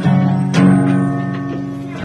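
Acoustic guitar strummed twice, the second strum about half a second in, then the chord left ringing and slowly fading as the song's closing chord.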